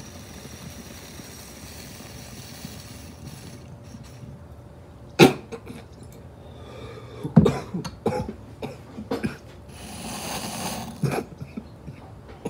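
A man coughing hard after a large dab hit of hash rosin vapour from a glass dab rig. One loud cough comes about five seconds in, then a run of coughs a couple of seconds later, and another near the end. The first few seconds hold only a steady airy hiss.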